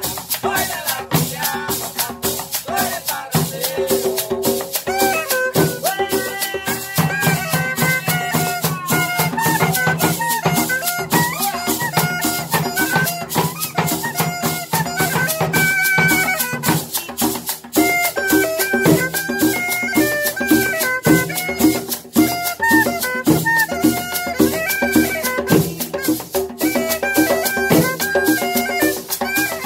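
Instrumental cumbia: a tambora struck with sticks, two hand drums and a metal tube shaker (guache) keep a steady rhythm, and a transverse cane flute comes in about five seconds in with a stepped melody over them.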